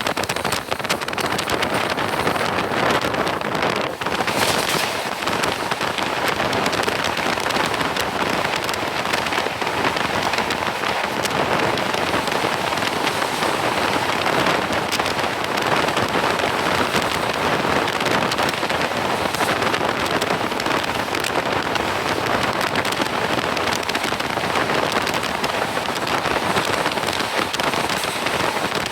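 Heavy monsoon rain: a steady, even rushing noise with scattered sharp ticks of drops, heard from a moving train.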